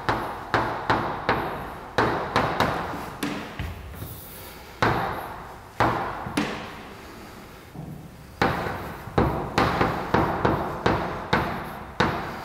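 Chalk writing on a blackboard: an irregular run of sharp taps as the chalk strikes the board, each ringing briefly, with scratchy strokes between them and a short lull just past the middle.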